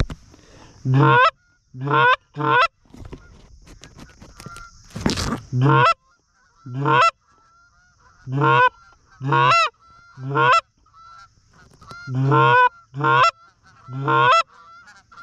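Loud Canada goose honks and clucks in quick runs of one to three, blown on a hand-held goose call to work a circling flock, with fainter honking from the flock between them. A short rustling burst about five seconds in.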